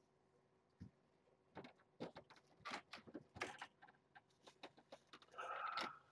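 Faint crinkling and scratching of a disposable absorbent pad as a kitten and a hand move over it: a run of short crinkles, with a longer rustle near the end.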